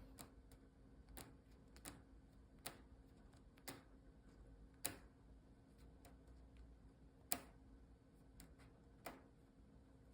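Faint, irregular sharp clicks, roughly one a second, with two louder ones about five and seven seconds in.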